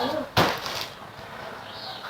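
A single sharp knock about a third of a second in, with a short ring after it.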